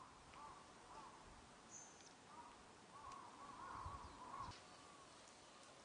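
Faint bird calls: short rising-and-falling notes repeating, a little louder about four seconds in.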